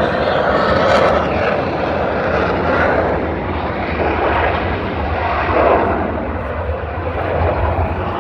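Loud, steady engine noise of a fixed-wing airplane flying at an air show.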